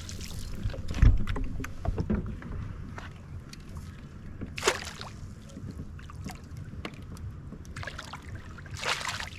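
Knocks and handling noise aboard a kayak while a hooked bass is fought, over a low rumble of wind on the microphone. Two short rushing bursts stand out, one about halfway through and a longer one near the end.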